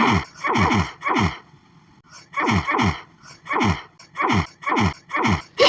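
A woman's rapid-fire sneezing fit: about ten short sneezes in quick succession, each dropping sharply in pitch, with a brief pause about a second and a half in. It is an itchy, tickly-nose fit that she puts down to allergies.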